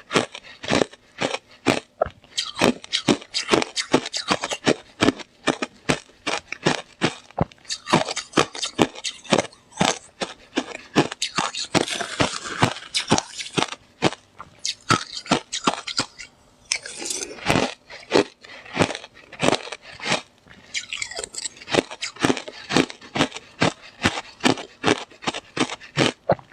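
Yellow slush ice being bitten and chewed close to the microphone: loud crunches in quick, irregular succession, several a second.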